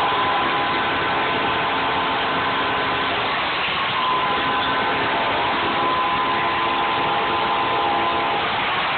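Large arena hockey crowd cheering a goal, a steady loud roar, with sustained pitched tones sounding through it.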